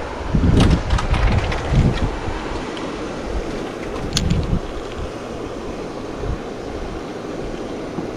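Wind buffeting the camera microphone, giving a steady rushing noise, with a few sharp clicks from handling the rod and spinning reel during a slow retrieve, bunched in the first second and a half and once more about four seconds in.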